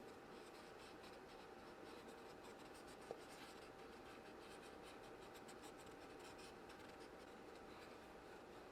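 Near silence: faint room tone with light, scattered scratching or rubbing and a single small tick about three seconds in.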